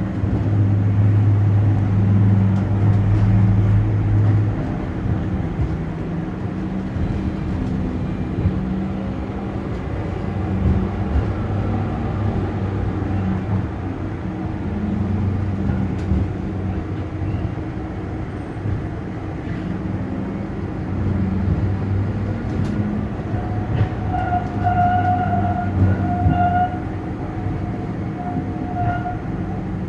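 Schindler Ag Be 4/6 tram running on street track, heard from on board: a steady low motor hum over the rumble of the wheels on the rails. Near the end a higher whistling tone comes and goes several times.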